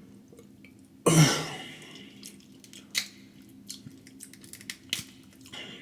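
Eating sounds during a seafood boil mukbang: a loud breathy mouth sound about a second in, then scattered small clicks and wet smacks of chewing and handling shellfish, over a faint steady hum.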